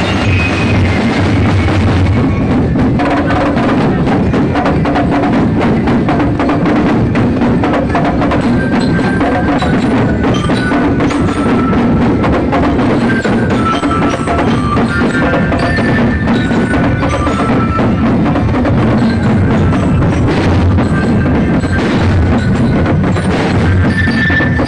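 Loud, steady percussion-led music: a dense run of rapid drum and clicking strokes, with short pitched notes sounding above them.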